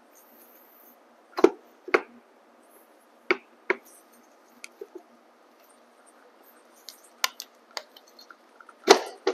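Scattered knocks and clicks of a Bafang M600 mid-drive motor being handled and seated into an e-bike frame's motor mount, with its wiring pressed in. A handful of sharp taps come at irregular moments, the loudest near the end.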